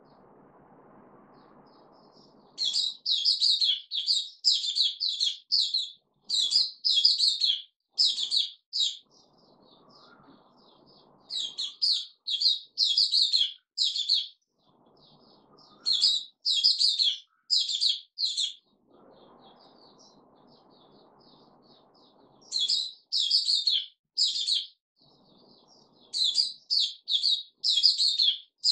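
A caged bulbul singing in bursts of quick, bright, repeated notes, several to a phrase, with short pauses between phrase groups. A faint low background hum fills the gaps.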